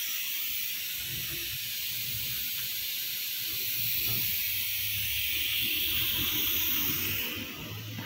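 Steady high-pitched hiss, easing off about seven seconds in, over a faint low hum.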